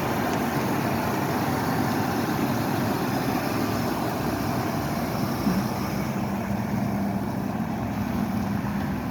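Chevy S10 pickup's engine running steadily at idle, with a steady hum joining in about halfway through.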